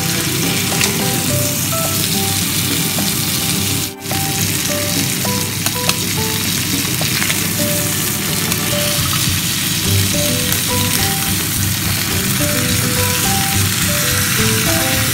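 Beef steaks frying in butter on a ridged grill pan: a steady sizzling hiss, under background music of short melody notes.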